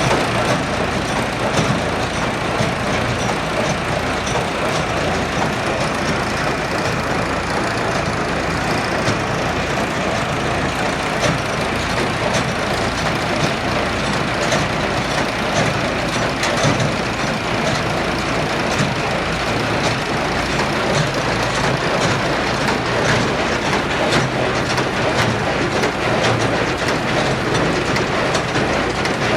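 Bamfords BL30 baler running, a steady loud mechanical clatter laced with rapid fine ticking.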